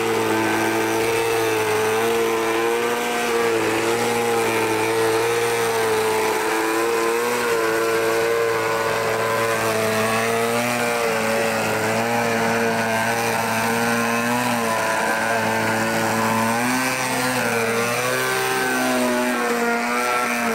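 Gasoline two-stroke engine of a large RC aerobatic airplane running steadily at high throttle while the plane hangs on its propeller, the pitch wavering slightly. In the last few seconds the pitch swings up and down as the throttle is worked into a vertical climb.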